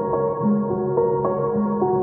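Gentle ambient background music, held keyboard-like tones with a new note every half second or so.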